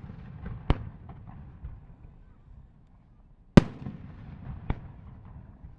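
Fireworks shells bursting overhead: a sharp bang about a second in, a louder one about three and a half seconds in and a smaller one a second later, each followed by a low rumbling echo.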